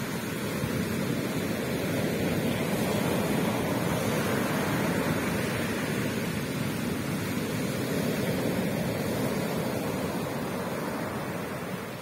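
Ocean surf: strong waves breaking and foaming onto the shore, a continuous rushing wash that swells a little in the middle and eases near the end.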